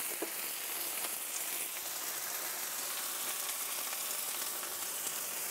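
Chopped onion sizzling steadily on a hot clay comal, with two light knocks right at the start.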